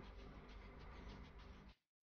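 Faint, soft scraping of a silicone spatula stirring an oily spice mix in a non-stick kadai, in a run of light strokes; the sound cuts off suddenly near the end.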